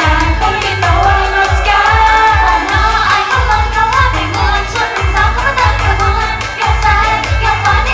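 Thai idol-pop song with a woman's voice singing over a steady kick-drum beat, about two beats a second.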